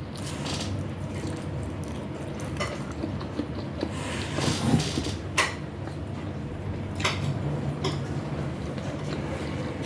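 Eating sounds: cutlery and dishes clinking, about half a dozen sharp clicks spread out, with a short rustle midway, over a steady low hum.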